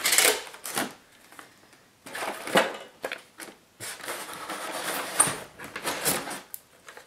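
Unpacking sounds: clear plastic wrapping crinkling and a polystyrene foam packing insert being handled, in several bursts of rustling with short pauses between.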